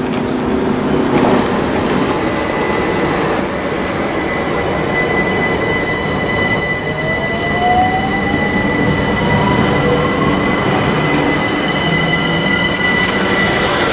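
Class 377 Electrostar electric multiple unit drawing away from a platform: a steady high electric whine from its traction equipment, with a tone that rises in pitch about halfway through as the train gathers speed.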